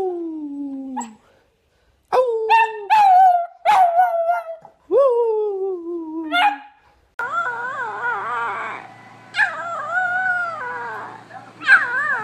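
A beagle howling: a falling howl tails off, then after a short pause a few sharp barks run into long howls that slide down in pitch. About seven seconds in, a young puppy takes over with higher, wavering howls in several drawn-out bouts, over a steady low hum.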